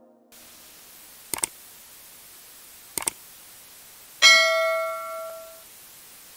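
Subscribe-button animation sound effects over a steady hiss: two quick double clicks about a second and a half apart, then a bell ding about four seconds in that rings for just over a second.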